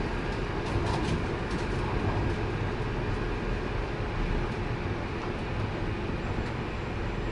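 Train running along the rails: a steady running noise with scattered light clicks.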